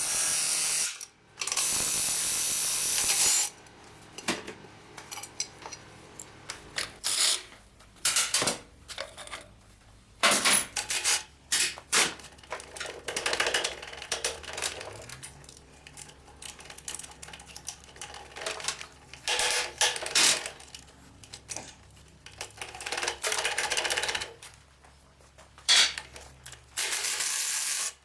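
Metal tools and loose engine parts clicking and clanking as a diesel engine is taken apart, with a ratchet-like clicking. A few steady bursts of hissing noise, each about two seconds long, come near the start, about two-thirds of the way in and at the end.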